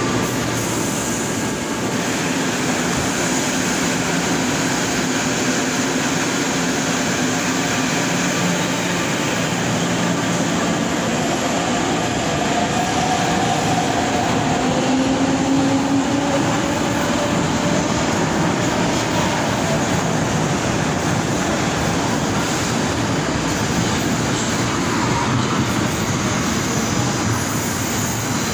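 Rio de Janeiro Metro subway train running along an underground station platform: a steady, loud rumble of steel wheels on rail, with a faint whine rising in pitch around the middle.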